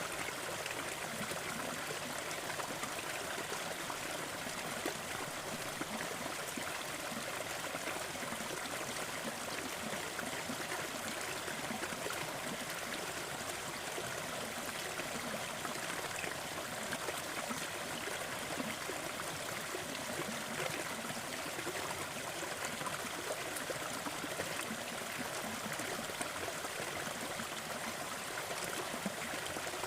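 Small, gentle waterfall: water falling and trickling in a steady, even rush that does not change.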